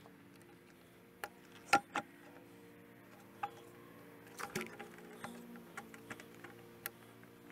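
Scattered light clicks and taps of hand work on the intake as hoses, fasteners and the plastic air box are undone and pulled off, the loudest a quick double tap a little under two seconds in.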